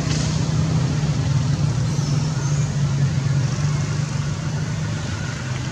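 A steady low motor hum, even throughout, like an engine idling.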